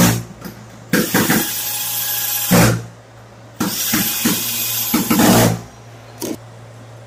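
Cordless drill/driver driving screws through a ceiling speaker's mounting rim. It runs in a brief burst at the start, then in two runs of about two seconds each, each getting louder just before it stops. A short click comes near the end.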